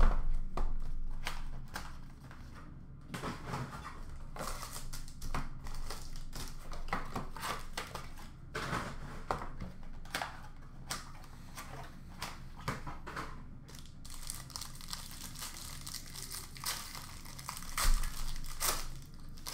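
Cardboard trading-card box and its packaging being opened and handled by hand: irregular crinkling, rustling and tearing of card and wrapper, with a knock at the start and a low thump near the end.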